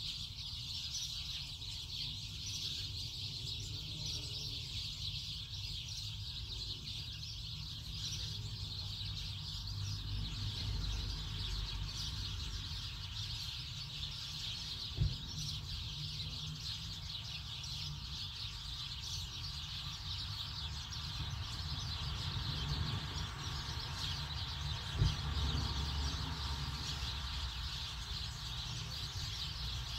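Birds chirping steadily over a low rumble, with two sharp clicks, one about halfway through and one near the end.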